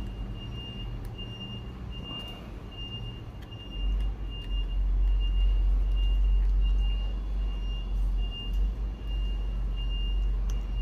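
Electronic beeping, a high short tone repeating evenly about twice a second, over a low rumble that gets louder about four seconds in.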